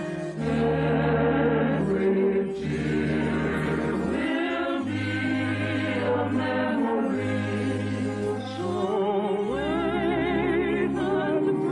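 Choir singing with orchestral accompaniment in long held notes over a steady bass, on an old radio broadcast recording. From about nine and a half seconds a voice with a wide vibrato rises above the rest.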